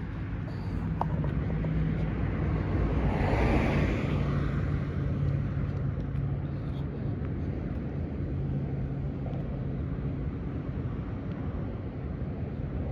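Road traffic: a passing vehicle's tyre and engine noise swells to a peak about three to four seconds in, then fades, over a steady low engine rumble.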